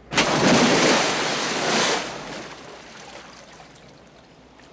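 A body falling into a pond: a sudden heavy splash, loud for about two seconds, then dying away into quieter water noise.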